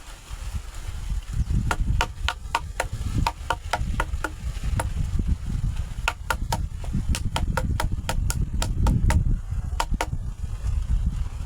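Repeated sharp chopping strikes, in quick runs of two to four a second with short pauses between runs, over a low rumble of wind on the microphone.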